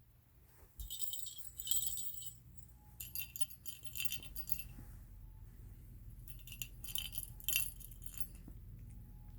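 Small metal objects jingling when shaken, in three bursts of about a second each with pauses between.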